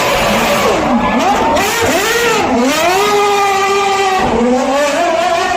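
Red Bull RB7 Formula One car's 2.4-litre V8 engine revving hard, its pitch dropping and climbing several times. It then holds a steady high note, drops again about four seconds in, and climbs back.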